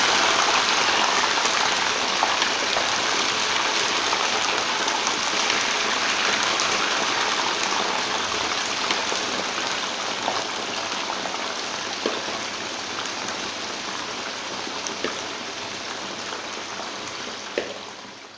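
Sliced potatoes deep-frying in hot cooking oil: a steady, dense sizzle that slowly grows quieter, with a few faint clicks.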